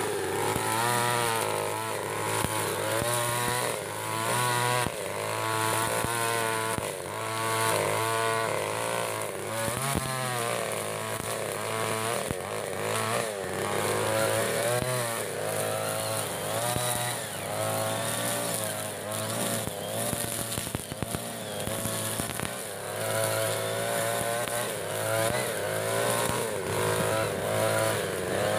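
Backpack brush cutter powered by a 63cc Koshi two-stroke engine, converted from a go-ped motor, running continuously while cutting thick grass. The engine pitch rises and falls over and over, about once a second.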